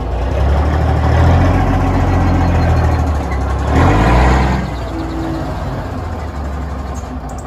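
Diesel engine of a heavy wrecker tow truck running with a deep low rumble. It revs up about four seconds in as black smoke puffs from the exhaust stack, then drops back to a quieter steady idle.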